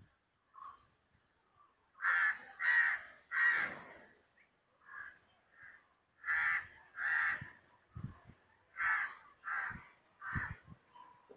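A crow cawing repeatedly, about ten caws in short runs of two or three, with a few brief low thumps in the later part.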